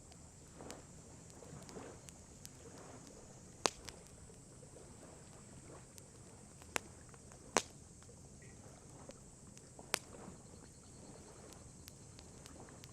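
Wood burning in a campfire, crackling and popping: scattered small crackles with four sharp, louder pops spread through, over a faint steady hiss.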